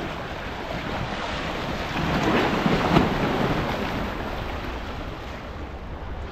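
Sea waves washing and breaking over breakwater rocks, with wind buffeting the microphone. A wave surges louder about two to three seconds in.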